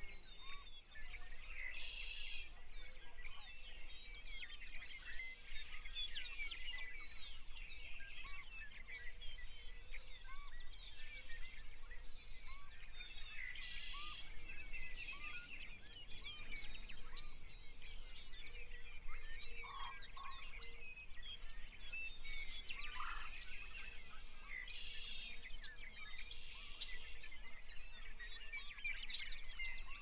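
Many birds chirping and trilling together over a faint steady hiss: a birdsong nature ambience.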